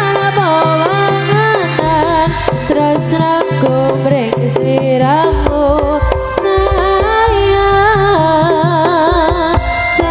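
Javanese jaranan music from a live ensemble: kendang hand drums beating quickly under a wavering melody. The low end grows heavier about five seconds in.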